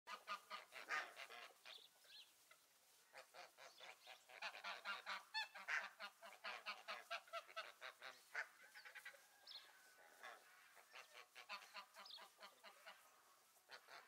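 A flock of domestic geese honking, many short calls tumbling over one another in quick runs with brief lulls between.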